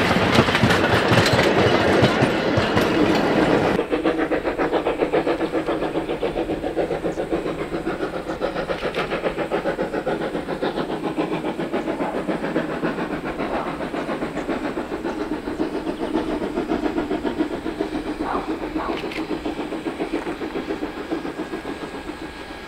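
Wooden passenger carriages rolling past over the rail joints with a clickety-clack. They give way abruptly to the rapid, even chuffing of a Queensland Railways C17-class steam locomotive working, which slowly grows fainter.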